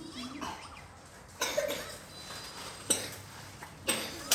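A child with a cough and fever coughing: four short, sudden coughs, each about a second apart.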